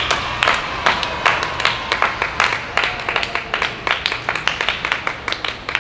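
A small group of people clapping their hands, with quick, uneven claps that thin out a little near the end.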